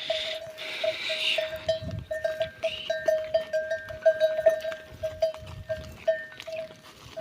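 Livestock bells ringing over and over at a steady pitch, about three strikes a second, with farm animals calling in the first second or so and again about three seconds in.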